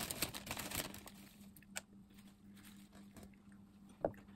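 Handful of rocket leaves being dropped and spread onto a cheese-topped mushroom cap: a soft rustle in the first second, then a couple of light ticks.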